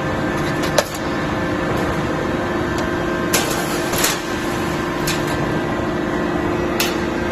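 Steady hum of running machinery, with a few short, sharp knocks scattered through it, the loudest about a second in.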